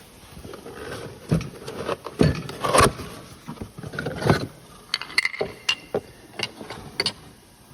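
Old engine pistons and other metal engine parts being handled: irregular clinks and knocks of metal on metal, with a few short ringing clinks in the second half.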